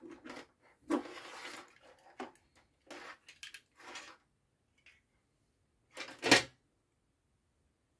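Handling noise from wiring work: small clicks and knocks of a screwdriver and wires at the screw terminals of a relay socket, with a short rustle about a second in. A sharper, louder knock comes a little after six seconds.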